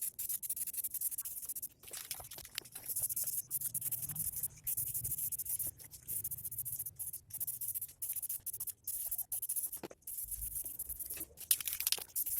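Irregular, scratchy rubbing strokes on the bare steel body of a Honda C70 during paint stripping and rust treatment, with brief pauses between strokes.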